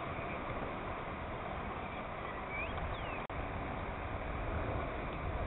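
Steady open-air ambience with a low rumble of wind on the microphone, and a couple of faint high chirps near the middle; the sound drops out for an instant just past halfway.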